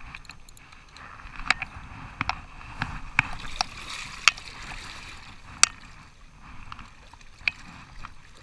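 A large lake sturgeon thrashing in shallow water at the bank, splashing, with a scattering of sharp knocks over the hiss of churned water.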